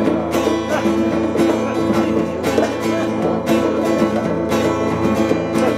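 Acoustic guitar strummed in a steady rhythm with hand-played bongos: an instrumental break between sung verses.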